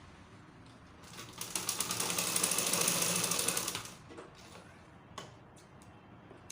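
Sewing machine stitching in a fast, even rhythm for a little under three seconds, starting about a second in and stopping; a few light clicks follow.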